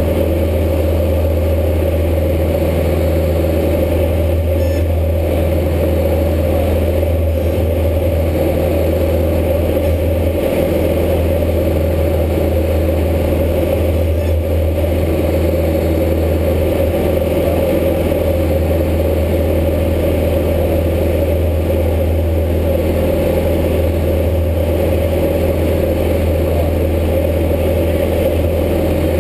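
Single-engine light airplane's piston engine and propeller at takeoff power, heard from inside the cabin as a loud, steady drone with a deep hum underneath, during the takeoff and initial climb.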